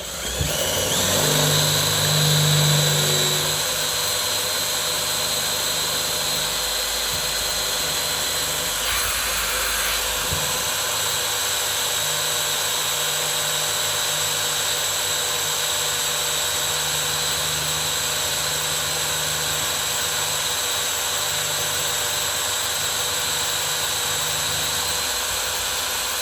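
Handheld electric drill with a 1/4-inch bit boring into a safe's steel lock mounting plate, running steadily with a high whine. It is drilling through to the solenoid of the malfunctioning electronic lock so the handle can be turned.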